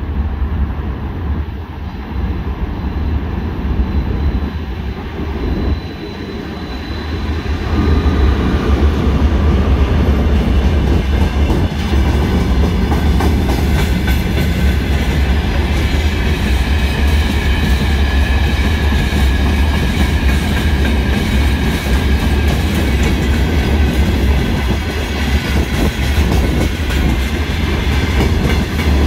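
Freight train hauled by a Siemens ER20CF diesel-electric locomotive, growing louder as it draws near and getting much louder about seven or eight seconds in as it reaches the platform. After that comes a long, steady rumble of open freight wagons rolling past, with clickety-clack from the wheels and a faint high wheel squeal now and then.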